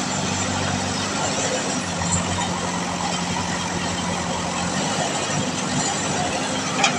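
JCB 3DX backhoe loader's diesel engine running steadily, its pitch dropping a little about two seconds in and rising again near five seconds, with one sharp click shortly before the end.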